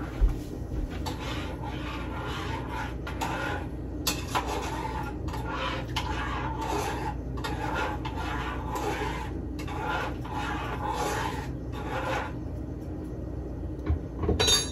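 A spoon scraping and stirring around a saucepan on the stove, in repeated strokes about two a second, with an occasional sharp knock against the pot. A steady low hum runs underneath.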